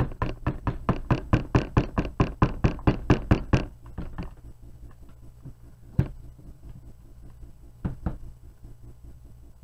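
Stick blender's metal head tapped rapidly against a plastic pitcher, about five knocks a second for some three seconds, to knock soap batter off it; then a couple of single knocks as the blender is set into the other pitcher.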